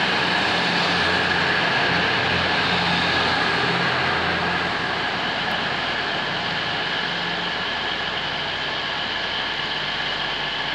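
East Midlands Trains diesel train pulling away from the platform, its engines running with a low hum that fades out about halfway through as it draws off, over a steady rumble and whine.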